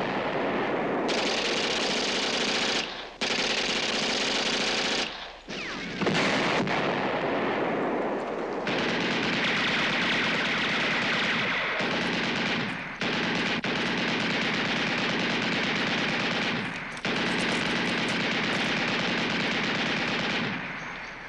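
Sustained machine-gun fire in long rattling bursts, broken by short pauses every few seconds.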